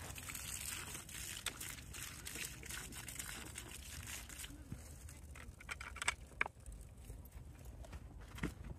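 Water running from an outdoor spigot and splashing over a drill's mixing paddle as it is rinsed clean. The hiss fades after about four seconds, and a few light knocks follow.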